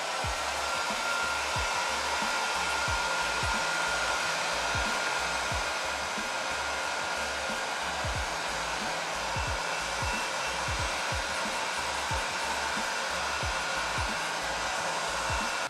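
Handheld heat gun running steadily, a blowing rush with a steady motor whine, switched off at the end. It is being used to draw air bubbles up out of freshly mixed epoxy resin.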